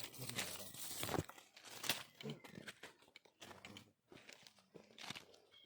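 Footsteps rustling and crunching through leaves and undergrowth on a forest trail: irregular dry crackles, some louder than others.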